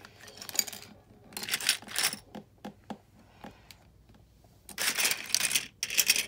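Loose LEGO pieces clattering and clicking as they are handled: two bursts of rattling with a few single clicks between them.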